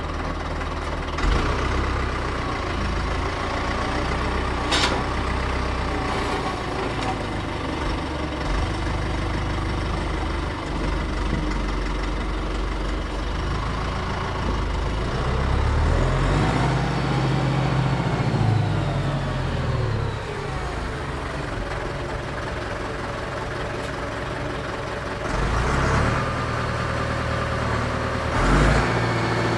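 Diesel tractor engine running steadily, revving up and back down about halfway through, with a few clanks, the sharpest about five seconds in.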